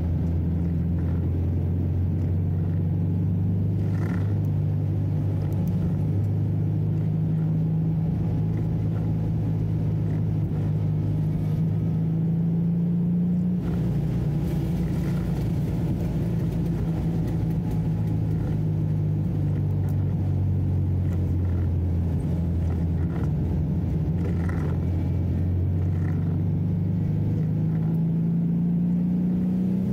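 Vintage racing car's engine running at speed, heard from the cockpit. Its note holds steady, shifts down about halfway through, then climbs in pitch near the end as the car accelerates.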